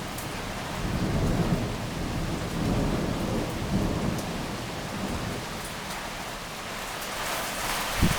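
Heavy rain hissing steadily while thunder rolls in a low rumble that swells about a second in and fades over several seconds. A short sharp crack comes near the end.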